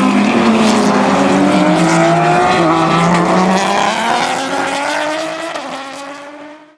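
Aston Martin DBR9 GT1 race car's 6.0-litre V12 running hard at high revs. It holds steady, dips briefly, then climbs in pitch as it accelerates, and fades away over the last couple of seconds.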